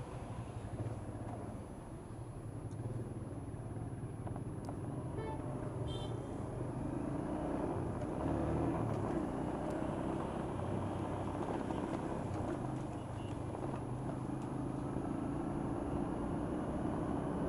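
Moped engine running under way amid city traffic noise, getting a little louder from about seven seconds in. A short vehicle horn toot sounds about five to six seconds in.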